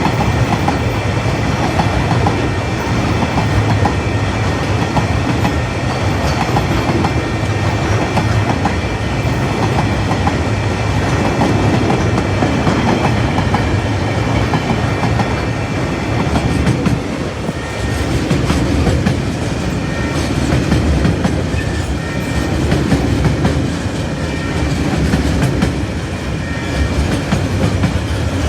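TasRail freight train rolling past, its wagons' wheels clacking over the rail joints in a steady loud rumble with a faint high ringing from the wheels on the rails.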